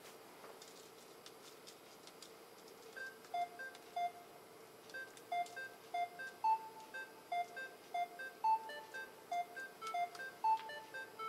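Yamaha Tenori-on playing short electronic bleeps in a looping step-sequenced pattern. The pattern starts about three seconds in and grows busier as more notes are added. Before it, a few faint clicks.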